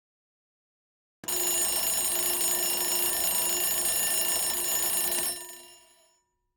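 Alarm bell ringing steadily, starting about a second in and stopping after about four seconds, its tone dying away over the next second.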